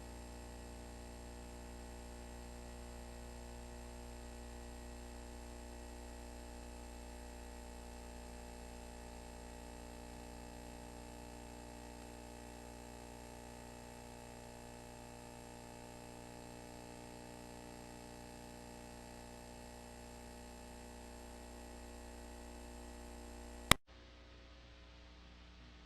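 Steady electrical hum and hiss with several fixed tones, the background of an old broadcast recording with no programme audio. A single sharp click about 24 seconds in, after which a quieter, duller hiss continues.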